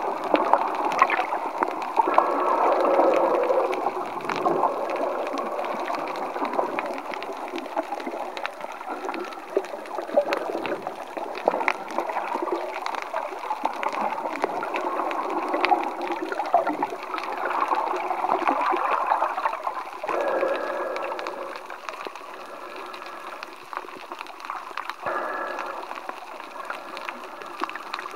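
Muffled underwater water noise picked up by a submerged camera: continuous gurgling and sloshing with many short clicks scattered through it.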